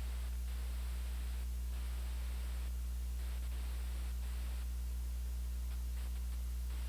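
Steady low electrical hum with a faint hiss and no programme sound: dead air between broadcast segments.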